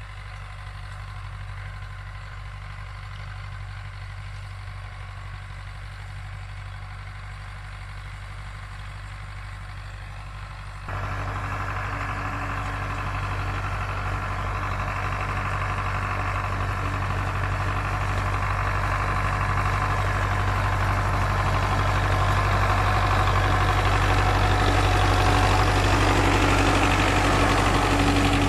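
Farm tractor's diesel engine running steadily as it pulls a rotary tiller through ploughed soil. About eleven seconds in the sound becomes suddenly louder and brighter, then grows gradually louder as the tractor comes closer.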